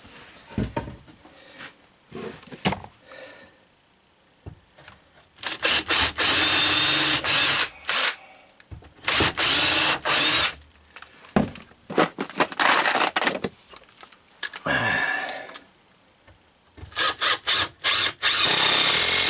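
Cordless drill running in five bursts of about one to three seconds as screws are driven into a wooden shelf frame. There are a few light handling knocks before the first burst.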